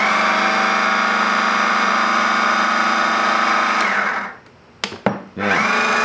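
12-volt electric car jack's motor running at a steady pitch, cutting off about four seconds in. Two sharp clicks of the control buttons follow, then the motor starts up again to drive the jack back down.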